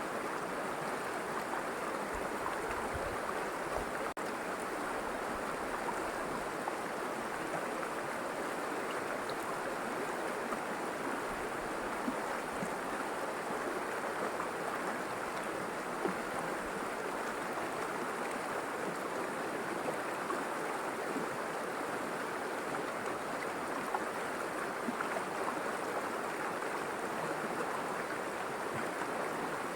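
River water flowing and splashing in a steady rush, with small splashes and gurgles flickering through it.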